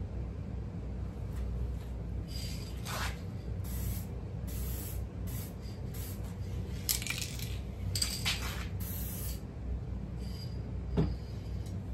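Aerosol can of U-POL No. 9 blend spraying in a series of short hissing bursts onto a sanded plastic taillight lens.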